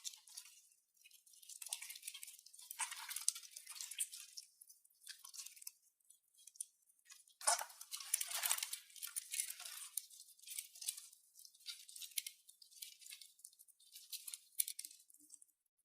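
Crinkly, crunching handling noise coming in uneven bursts, as hands work slime-making materials. It is loudest about seven and a half seconds in.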